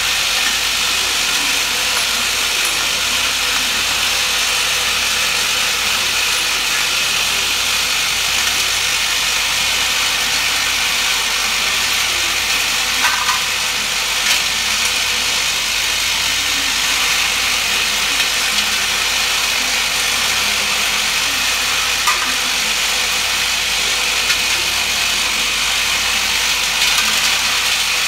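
Vibratory bowl feeder running steadily, a constant mechanical buzz with hex bolts rattling against the stainless-steel bowl and feed track. A few sharper metallic clinks come about halfway through and again later, as bolts are dropped into the bowl.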